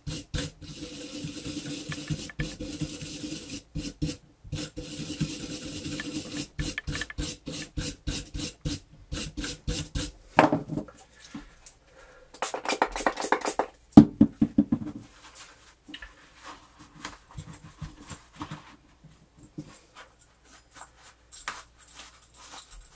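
Bronze brush scrubbing the copper commutator of a vintage Hamilton Beach mixer motor's armature, cleaning off grime for better brush contact. Rapid scraping strokes over a steady hum for the first ten seconds or so, then sparser scrapes and handling knocks, one sharp knock a little past the middle.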